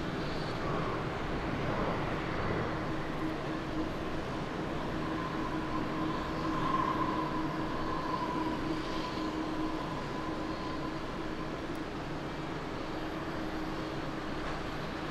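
Jet engines of a Japan Airlines Boeing 777 rolling along the runway: a steady roar with a whine that swells about halfway through and then fades.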